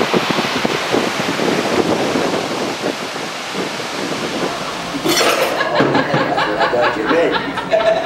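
Strong hurricane wind rushing and buffeting the microphone. About five seconds in, a more pitched, patterned sound joins it.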